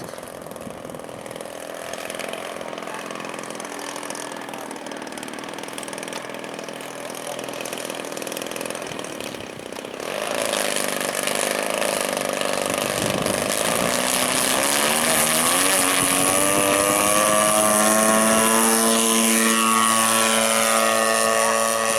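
Radio-controlled model airplane's motor and propeller running in flight, growing louder about halfway through as it comes closer, its pitch gliding up and down as it passes in the second half.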